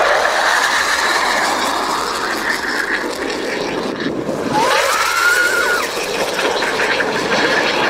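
Jet aircraft flying past low and fast, a loud steady rushing roar, broken about four seconds in by a cut to another pass. A short rising whistle-like tone sounds about five seconds in.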